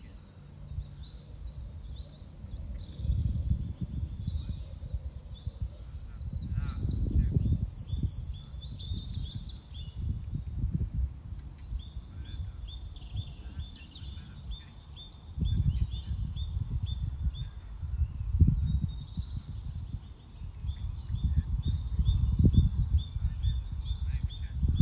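Small birds singing, with a flurry of trills about a third of the way in and then a long run of quick repeated chirps, two or three a second. A low rumble swells and fades underneath.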